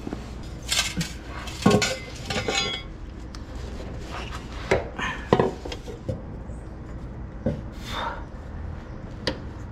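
Miata's polished steel exhaust pipe and muffler section clinking and knocking against the car's underbody and hangers as it is lifted and shifted into place: a string of irregular metallic clinks with short ringing.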